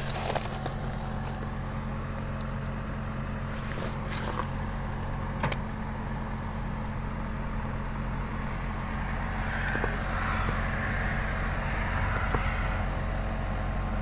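Senville Aura HFZ 12,000 BTU mini-split heat pump outdoor unit running at full heating capacity: a steady low compressor hum with the fan, heard up close at the compressor side. A few faint clicks come through underneath, and the unit gets slightly louder and hissier after about nine seconds.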